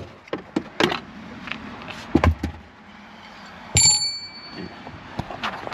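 Tools and parts being handled: scattered clicks and knocks, a dull thump about two seconds in, and near four seconds a sharp metal clink that rings briefly like a small bell, as from a steel socket or wrench striking metal.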